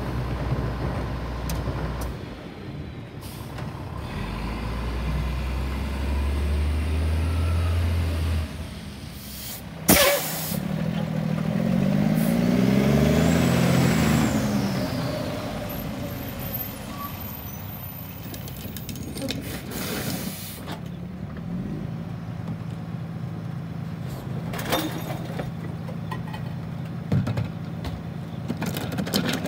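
Rear-loader garbage trucks at work: the diesel engine runs and revs up and back down while the packer cycles, with a sharp bang just before ten seconds in and a short air brake hiss around twenty seconds in.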